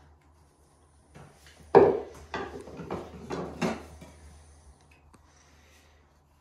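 Handling noise: a run of about six short scrapes and knocks, the first the loudest, as damp lining paper is pushed behind a loosened plastic socket faceplate with a screwdriver.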